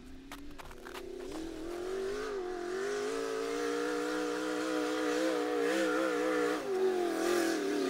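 Engine of a small-tire off-road race buggy revving up as it climbs, its pitch rising over the first few seconds, then held high and wavering. About two-thirds of the way through the pitch dips briefly, then picks up again.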